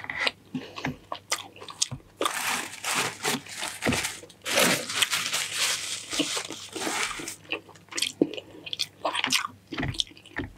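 Eating sounds close to the microphone: chewing and biting, with two long stretches of loud crunching between about two and seven seconds in.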